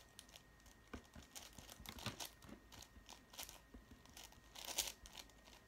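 Faint, irregular clicking and clacking of a 5x5 Rubik's cube's plastic layers being turned by hand, with a louder quick flurry of turns near the end.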